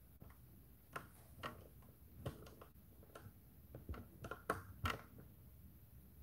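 About eight light clicks and taps, irregularly spaced, the loudest two near the end, over faint room tone.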